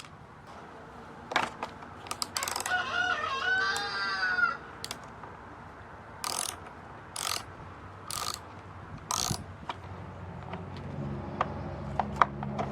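A rooster crows once in the background, then four short ratcheting rasps come about a second apart as the chainsaw's chain and bar are worked by hand.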